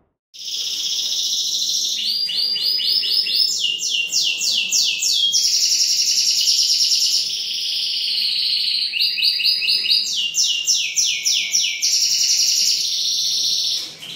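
Domestic canary singing one long song: runs of quick, repeated sweeping notes alternating with smooth, continuous rolls, with no break until just before the end.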